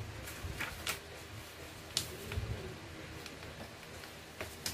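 A sheet of paper rustling and being creased by hand as it is folded on a wooden tabletop, with a few short crisp crinkles, the sharpest about two seconds in.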